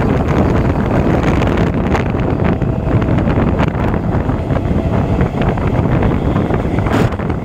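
EMU electric local train running: a loud, steady rumble mixed with wind buffeting the microphone, with a few sharp clicks, about two seconds in and again near the end.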